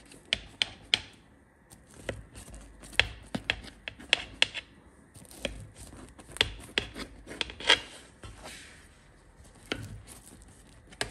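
A knife cutting through hot, freshly baked cheesy bread: rasping strokes through the crust with irregular sharp clicks.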